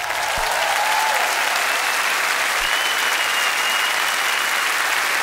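Large studio audience applauding steadily as the song ends, with one long high whistle about three seconds in.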